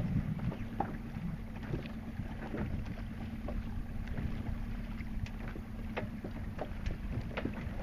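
Water slapping and splashing irregularly against a small boat's hull under way, over a steady low hum, with wind buffeting the microphone.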